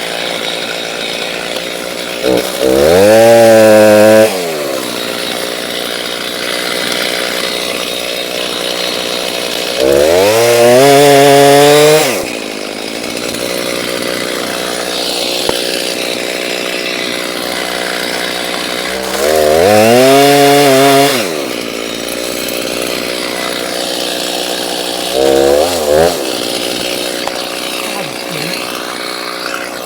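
Chainsaw engine idling, revved up to high speed three times for about two seconds each, as if cutting, then given two short blips near the end.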